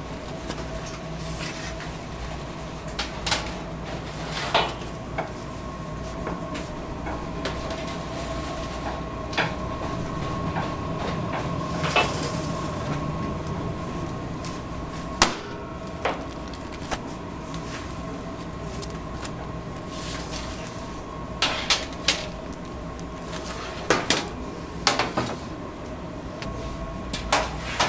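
Metal sheet pans knocking and clattering as trays of baked sponge are handled, a dozen or so sharp knocks at irregular times, some in quick pairs and clusters later on. Under them runs a steady hum of kitchen machinery.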